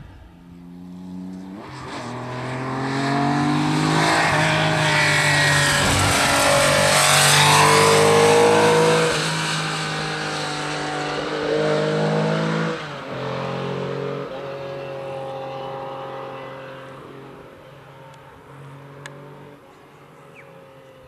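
Classic rally car at full race pace on a tarmac stage, its engine note climbing through the gears with breaks at each shift, loudest about halfway through and then fading away into the distance, echoing off the rock faces of the gorge.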